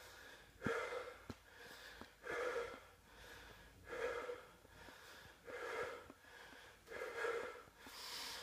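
A man breathing hard and rhythmically under the effort of holding a side plank, in through the nose and out through the mouth, about six breaths, one every second and a half.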